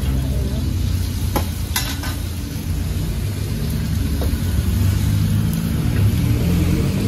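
Seafood stir-frying in a wok, sizzling as it is stirred, with a few sharp clacks of the metal spatula against the pan. Under it runs a steady low engine-like hum.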